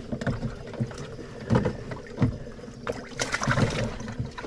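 Scattered knocks and thumps in a small fishing boat, a few louder ones about one and a half, two and a quarter, and three to three and a half seconds in.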